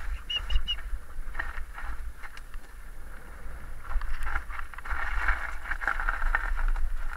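Mountain bike riding over a rough dirt trail: the tyres' crunching and the bike's knocks and rattles over the bumps, with wind buffeting the microphone, getting louder from about four seconds in. Three short, high chirps sound about half a second in.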